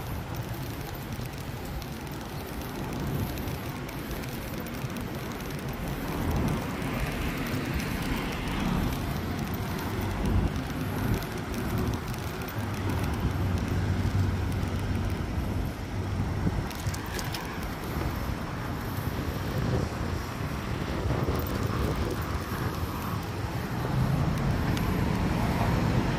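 Wind rushing over the microphone while riding a bicycle along a busy road, mixed with the rumble of passing traffic. It gets louder about six seconds in.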